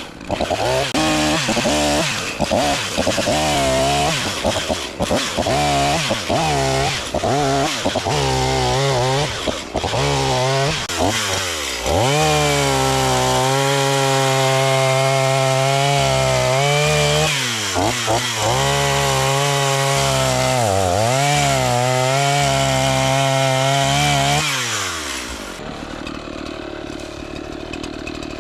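Gas chainsaw revving in many short bursts, then held at full throttle for longer cuts with a few brief dips, dropping back to idle near the end. This is the saw limbing and bucking a felled tree: cutting off the branches and sawing the trunk into pieces.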